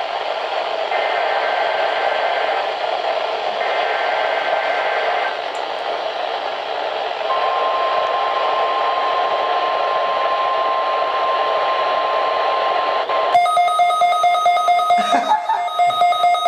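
NOAA Weather Radio Emergency Alert System transmission under heavy radio static: two bursts of SAME header data tones, then the steady 1050 Hz weather warning alarm tone for about six seconds. Near the end, a weather radio receiver's own pulsing alert alarm starts, set off by the warning tone.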